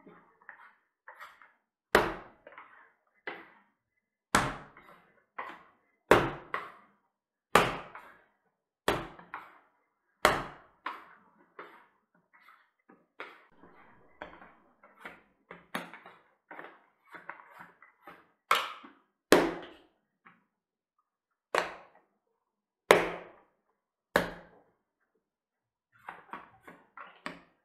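Pandesal bread dough being kneaded by hand on a countertop: sharp thumps as the dough is pressed and thrown down on the counter, about one every second and a half, with softer squishing and scraper-on-counter scraping between. The thumps thin out for a few seconds in the middle, then resume.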